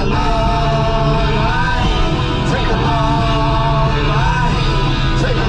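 Rock music with sung or held melodic lines over a steady backing.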